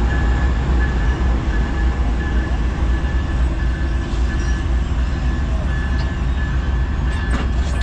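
Coast Starlight's diesel locomotives running steadily while the train stands at the platform: a constant heavy low rumble with a thin steady whine above it. A few faint clicks come near the end.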